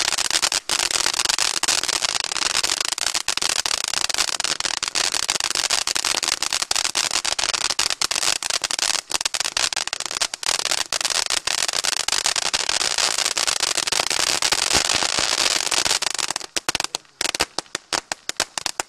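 Firework fountain battery's crackle effect: a dense, continuous crackling that breaks up into separate sharp pops near the end as it dies down.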